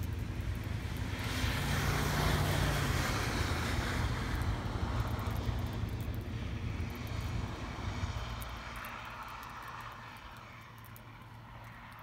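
A vehicle passing by: its noise swells about a second in, with a low hum underneath, then fades away slowly over the next several seconds.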